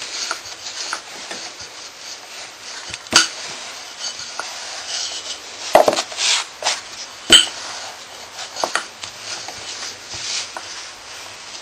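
Rolling pin rolling out pastry dough on a floured wooden board: a soft rubbing, scraping sound, with a few sharp knocks as the pin and dough hit the board.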